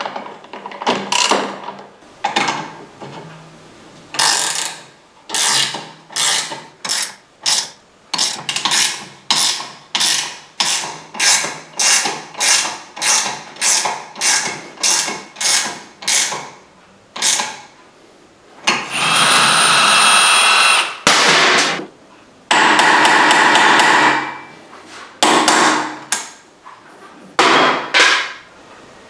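Repeated hammer blows on metal, about two a second, each ringing briefly, as steering head bearings are driven into place on a motorcycle frame or yoke. The hammering breaks off for two loud, steady noises of about two seconds each, then a few final blows.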